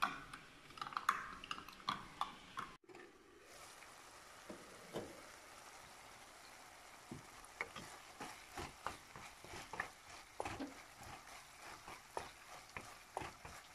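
A metal spoon stirring and clinking against a drinking glass of coconut-milk mix. Then, about three seconds in, a faint sizzle of pork frying in a nonstick pan, with many light taps and scrapes of a wooden spoon stirring it.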